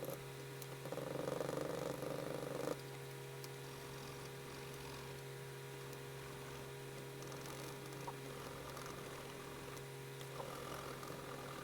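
Coloured pencil scratching on paper, with a louder spell of strokes about one to three seconds in and fainter strokes after, over a steady low electrical hum.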